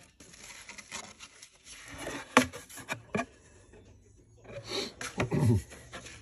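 Hands handling a plastic model car kit's cardboard box and paper contents: rubbing and rustling with a few sharp clicks and knocks, and a louder burst of handling near the end.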